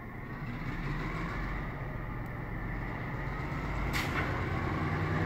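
EMD SW9 switcher's 12-cylinder 567B diesel engine running and growing louder, with a brief sharp noise about four seconds in.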